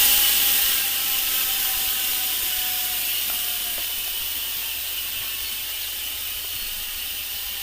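Sword bicycle rear hub with 6 pawls buzzing as the wheel freewheels, a fast, even ratcheting from the pawls clicking over the teeth, slowly fading and dropping in pitch as the wheel slows.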